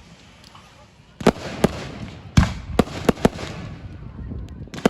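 Fireworks going off: after a quiet first second comes a quick run of about six sharp bangs, with one more near the end.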